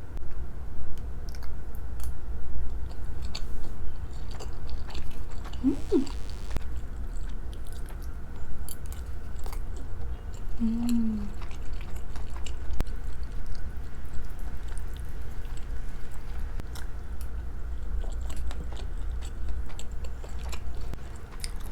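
Close-miked chewing of a mouthful of sushi cake (rice layered with salmon, mango and cucumber), with many small wet clicks and smacks.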